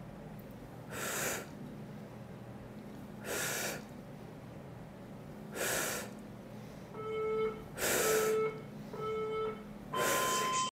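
Sharp, forceful exhales, one with each dumbbell squat-and-press rep, about every two and a half seconds. From about seven seconds in, a timer counts down with three short beeps a second apart and a longer, higher beep near the end.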